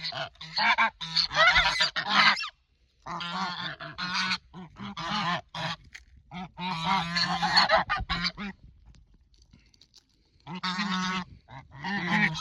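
Domestic geese honking in rapid, overlapping bursts, excited at being fed mealworms. The calls break off for a couple of seconds near the end, then start again.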